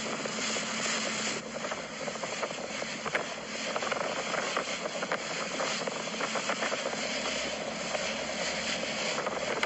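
Steady rushing noise of a passenger boat under way: a motor drone under a hiss of wind and water.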